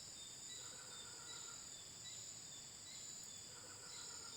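Steady high-pitched chorus of crickets and other insects, with a short high chirp repeating about twice a second. A faint lower call, lasting under a second, comes twice: about half a second in and near the end.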